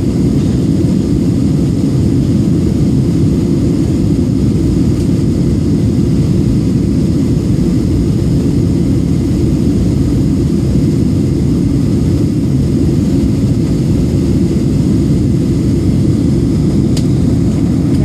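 Jet airliner cabin noise in flight: a steady low rumble of engine and rushing air heard from a window seat.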